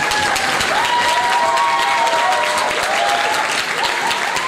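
Audience applauding, a dense patter of many hands clapping, with a few long drawn-out tones sounding over the claps.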